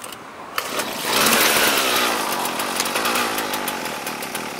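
Husqvarna 122HD45 hedge trimmer's small two-stroke engine catching about a second in and running at high speed, loudest just after it catches and then easing off a little.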